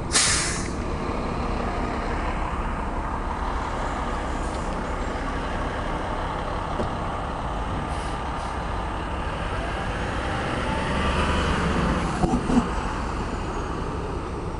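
Gillig Phantom transit bus with a Cummins ISM inline-six diesel idling steadily at the stop. A short, loud hiss of compressed air from the bus's air system opens the sound.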